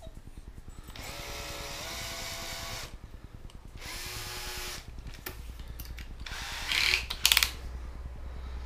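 Cordless drill boring a hole in an empty glass rum bottle, run in two short bursts: a long one and then a shorter one, its motor whine rising and then holding steady. Near the end, a brief, louder rattle of clicks.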